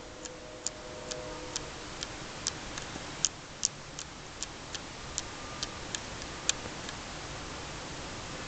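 Aperture setting of a Polaroid 195 Land Camera's Tominon f/3.8 lens being turned, giving a run of sharp light clicks about two a second that stop about seven seconds in.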